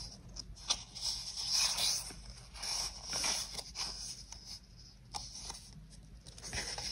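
Paper sticker sheets rustling and scraping against each other as they are handled and turned over by hand, in several short irregular spells.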